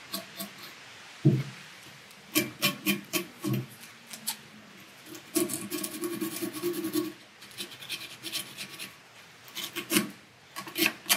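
Sandpaper rubbing against the bare electrode pin of a glass CO2 laser tube, in irregular short strokes with a longer scrubbing run midway, sanding off oxidation so the pin makes good electrical contact. A single sharp knock about a second in.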